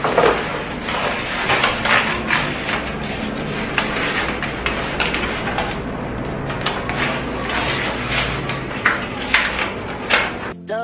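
Vinyl marble contact paper rustling and crackling as it is unrolled and pressed down onto a countertop, with many small irregular crackles.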